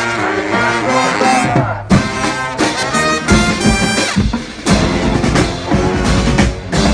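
A marching brass band playing live, with horns and drums together.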